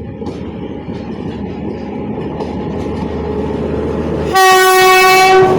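Approaching train rumbling louder and louder on the rails. About four seconds in, the locomotive sounds one long, loud, steady horn blast: the Polish Rp1 'attention' warning signal.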